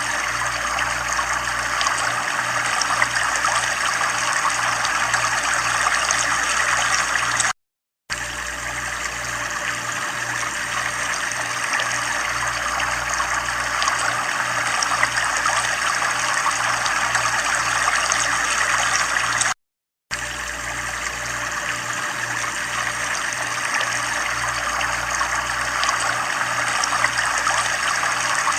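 Steady running water, a continuous trickling rush with a low regular pulsing underneath. The sound cuts out completely twice for about half a second, once about a third of the way in and again about two thirds of the way in.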